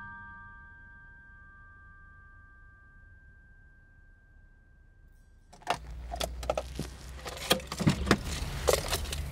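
A held musical tone fades away over the first few seconds. About five and a half seconds in, a bunch of keys jangles and rattles at a car's ignition, with quick clicks over a low rumble inside the car's cabin.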